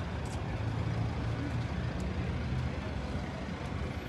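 Street traffic on a multi-lane road: passing car engines and tyre noise making a steady low rumble.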